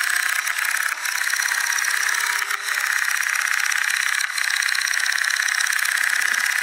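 Toy pop-pop (putt-putt) steam boat running, its candle-heated boiler popping rapidly and evenly in a steady putt-putt rattle as it drives the boat across the water.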